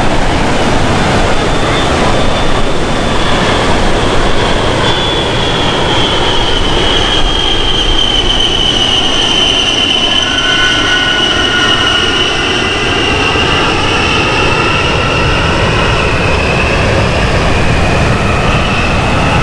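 An A-10 Thunderbolt II's twin TF34 turbofan engines whining on a low pass. A loud rush of jet noise sits under a high whine that slides slowly lower in pitch as the jet comes by and moves away.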